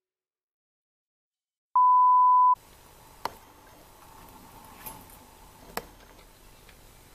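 A single electronic beep at one steady pitch, just under a second long, starting out of dead silence. After it come faint room sound and three short clicks.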